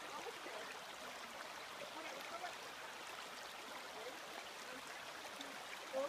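Shallow brook babbling over stones, a steady watery hiss.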